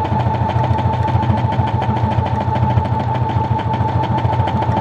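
Brother XR9550 computerized sewing machine running steadily at speed, its needle stroking in a rapid even rhythm over a whining motor, sewing a programmed meandering quilting stitch. It runs without rattling the table.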